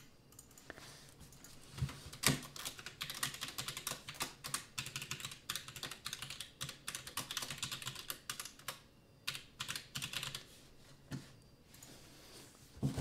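Typing on a computer keyboard: quick runs of key clicks with a brief pause about nine seconds in, thinning out near the end.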